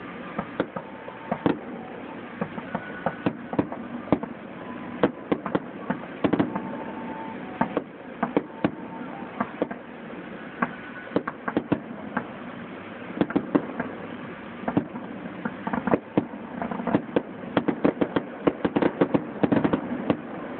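Aerial firework shells bursting in a fireworks grand finale: a long, irregular run of sharp bangs that comes faster and denser in the last third.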